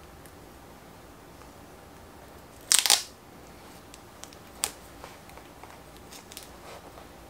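Handlebar tape being wrapped by hand onto a drop handlebar: a short, loud crackle a little under three seconds in, then a sharp tick and a few faint crinkles of the tape and its backing paper.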